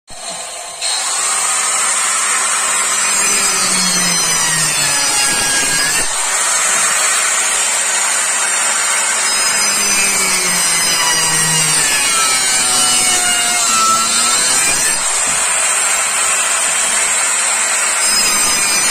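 Handheld corded power saw cutting lengthwise along a wooden plank, a steady loud whine and rasp whose pitch dips and recovers as the blade bites into the wood. It starts up just under a second in and cuts off abruptly at the end.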